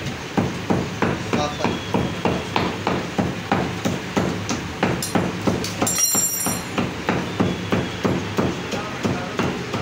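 Heavy meat cleaver chopping raw mutton into mince on a wooden log chopping block, in rapid, steady strokes of about three a second.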